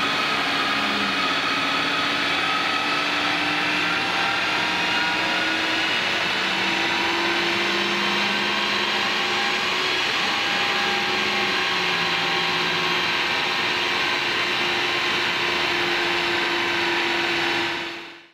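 A 2022 Honda Civic Si's 1.5-litre turbocharged four-cylinder running under load on a chassis dyno, with engine and roller noise held steady while its pitch climbs slowly. It fades out near the end.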